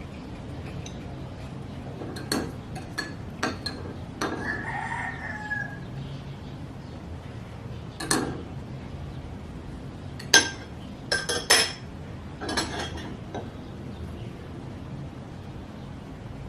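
A rooster crows once, about four seconds in, over a low steady hum, and there are a dozen or so sharp clinks and knocks of objects being handled, the loudest cluster a little past the middle.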